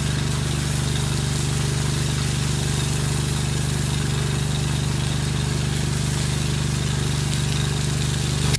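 Pressure washer's gas engine running steadily, with the hiss of the high-pressure spray over it.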